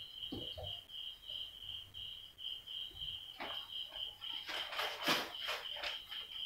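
A steady, high-pitched chirping in the background, about three chirps a second. A whiteboard duster wipes the board at the start, and a few brief rustles and scrapes come in the last three seconds as papers and a marker are handled.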